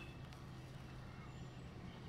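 Breath blown steadily into a smouldering tinder bundle to bring a bow-drill ember to flame, over a steady low hum.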